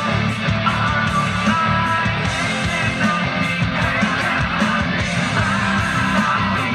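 Rock music with guitar and singing, played back from a cassette on a Technics RS-TR373 double cassette deck.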